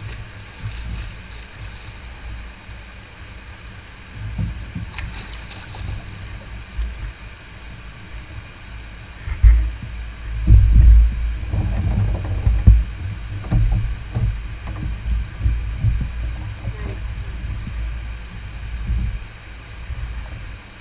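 Water splashing as a hooked blue catfish thrashes at the surface beside a plastic kayak. About ten seconds in come loud, irregular low thumps and knocks as the fish is grabbed and lifted aboard.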